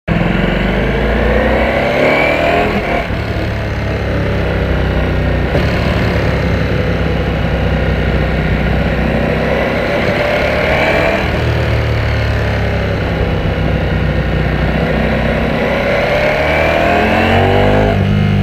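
Ducati Panigale V4S's V4 engine pulling hard through the gears. Its pitch rises steadily, then drops sharply at upshifts about three seconds in, about eleven seconds in and near the end.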